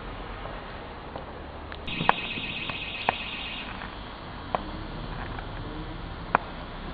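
Scattered sharp firework bangs at irregular intervals over a steady background hiss. About two seconds in, a high, rapidly pulsing alarm-like tone sounds for under two seconds.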